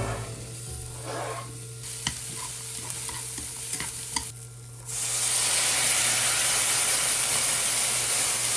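A few light clinks and taps of kitchen utensils, then about five seconds in a loud sizzle starts suddenly as food fries in a hot pan.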